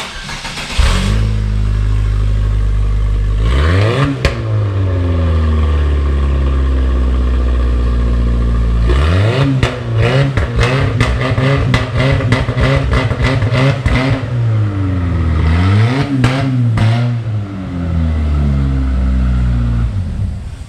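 Chevy S10 pickup engine running with its exhaust off, so it runs very loud. It catches about a second in and idles, is revved up and down several times with a rapid run of sharp pops in the middle, then shuts off near the end.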